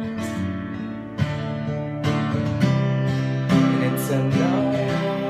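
Acoustic guitar strummed in an instrumental passage of a song, with a new chord struck every half second to a second.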